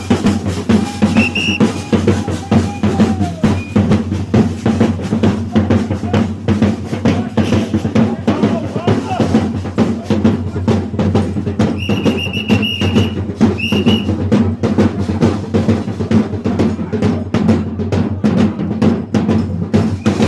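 Bumba meu boi percussion band playing a fast, dense rhythm on bass drums and snare drums without pause. About twelve seconds in, a few short, high, shrill tones cut through, likely a whistle.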